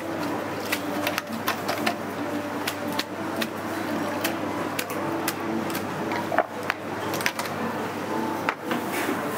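Irregular sharp metallic clinks of a wire strainer basket and ladle knocking against a steel stockpot of broth, over a steady background din.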